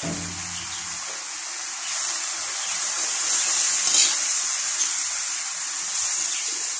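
Kangkong (water spinach) and pumpkin sizzling in a hot wok as they are stirred and tossed with a metal spatula: a steady high hiss that grows louder about two seconds in, with a brief louder scrape of the spatula about four seconds in.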